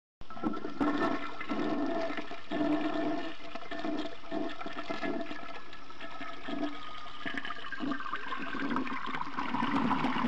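A toilet flushing: a steady rush of water that starts suddenly a moment in and keeps going.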